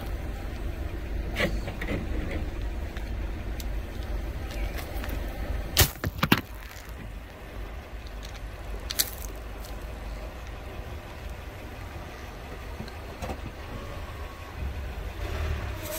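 Car engine running low while a tyre rolls over and crushes brittle objects, giving a few scattered sharp cracks. The loudest is a quick double crack about six seconds in.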